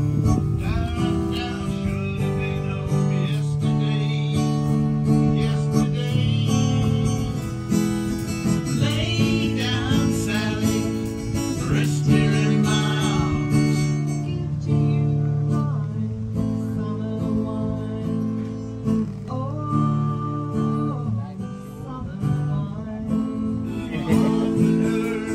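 Live acoustic guitar strummed in chords while a man sings, amplified through PA speakers.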